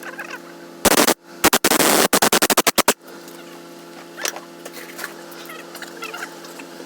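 Two loud bursts of rapid rattling clicks from a tool working on the engine's fasteners, about a second in and ending near three seconds, over steady background music.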